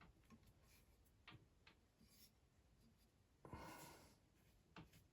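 Near silence with room tone, broken by a few faint clicks and one brief soft scrape about three and a half seconds in.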